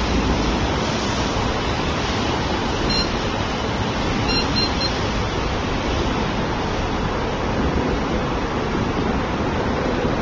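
Steady rushing noise of an outdoor city street picked up by a phone microphone. It is a dense, even hiss with no distinct events. A couple of faint, brief high chirps come about three and four and a half seconds in.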